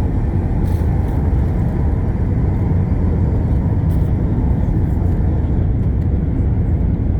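Steady, loud, deep rumble of an Airbus A380's engines at takeoff power, heard inside the passenger cabin during takeoff, with a few faint clicks.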